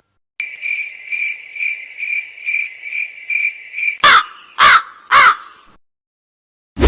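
Sound effect of a cricket chirping in a steady high pulse about twice a second, followed by a crow cawing three times, each caw falling in pitch. A sudden loud hit comes at the very end.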